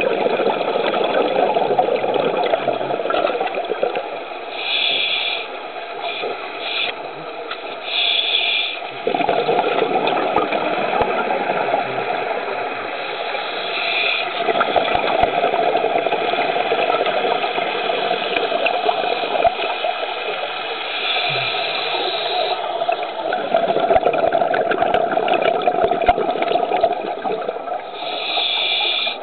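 Scuba diver's breathing through a regulator heard underwater. A short hissing inhalation comes every six or seven seconds, each followed by several seconds of bubbling exhalation.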